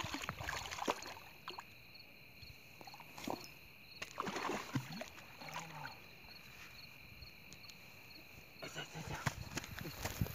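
A hooked carp splashing in the shallows at the water's edge and being hauled up onto the grass bank, with scattered knocks, slaps and rustles. A steady high thin trill runs underneath.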